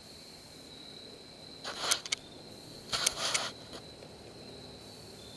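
Insects trilling steadily at one high pitch. Two brief bursts of louder noise, about two and three seconds in, each about half a second long.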